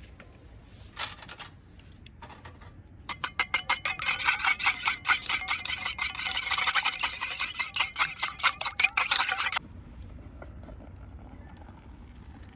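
Rapid, rhythmic rasping strokes, like scraping or grinding, starting about three seconds in and stopping suddenly some six seconds later, with a couple of short scrapes just before.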